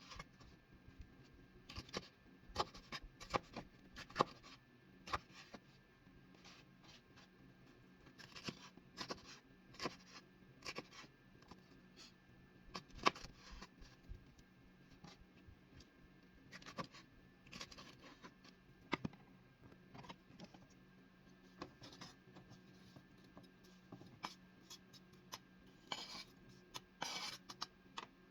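Kitchen utensils scraping and tapping irregularly, with a few longer scrapes, over a steady faint hum.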